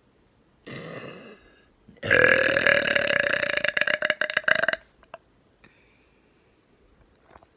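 A person burping close to the microphone: a quieter sound about a second in, then one long, loud, crackly burp of nearly three seconds held at a steady pitch.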